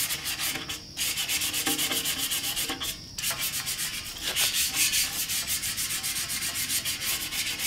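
Steel exhaust header tubes being hand-sanded, quick back-and-forth scratchy strokes, with brief pauses about one and three seconds in: surface prep before ceramic coating.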